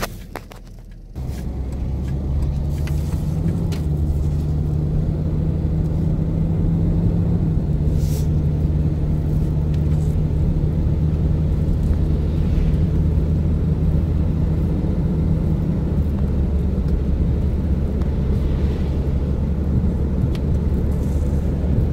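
Car driving on a wet road, heard from inside the cabin: quiet for about the first second, then a steady low rumble of engine and road noise as it pulls away and keeps going.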